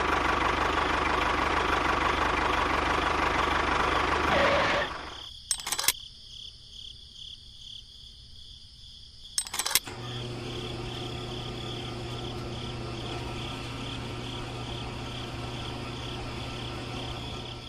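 Small electric motor of a home-made model tractor running with a steady whir, stopping about five seconds in. Two sharp clicks follow. About ten seconds in, a quieter steady motor hum starts with a low drone and a faint pulsing whine.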